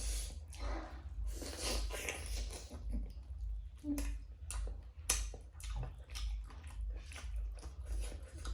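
Chewing and mouth sounds of a person eating pork with rice and dal, with many short sharp clicks and smacks.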